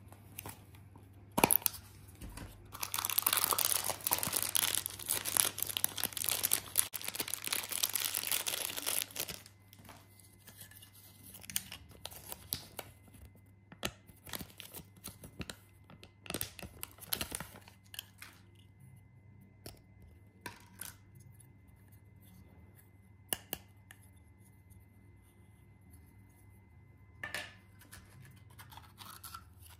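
Plastic packaging on a Cadbury toy tub being torn open: a loud ripping and crinkling from about two and a half seconds in that lasts roughly six seconds, followed by sparse rustles and light clicks of paper and plastic being handled.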